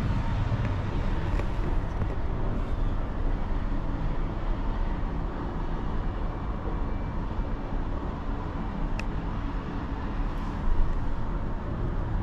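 Steady low rumble of a moving Emirates Air Line cable car gondola, heard from inside the cabin, with a brief thump near the end.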